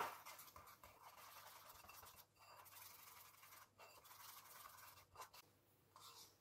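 A short knock at the start, then faint scratchy stirring of a silicone whisk working an oat-flour, cocoa and egg-white batter in a bowl.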